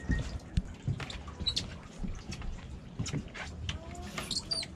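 Scattered knocks and clicks with water dripping and trickling, as a line or bait pen is handled over the side of a boat. A few short high chirps come near the end.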